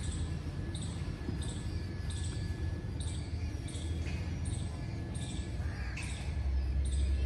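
Soft, regular steps about every two-thirds of a second over a low wind rumble on the phone's microphone, the rumble growing stronger near the end.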